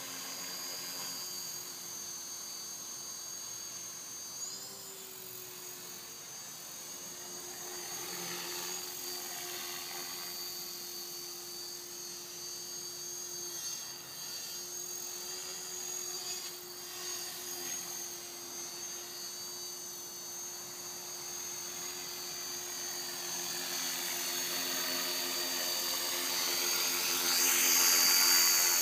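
Align T-Rex 450 Pro electric RC helicopter in flight, its motor and rotors whining steadily at a high pitch. The sound grows louder over the last few seconds as the helicopter comes closer.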